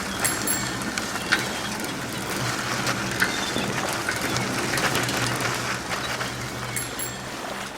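Sea waves washing, with scattered sharp clicks and a low steady hum underneath.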